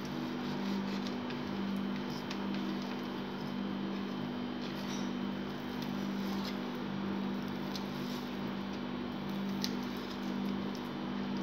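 Small knife cutting through soft cooked wheat-flour rolls on a paper plate: a few faint clicks and scrapes, over a steady low hum.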